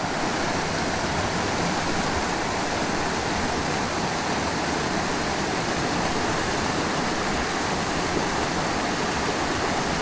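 Small mountain stream rushing over rocks and a short whitewater cascade, a steady, unbroken sound of running water.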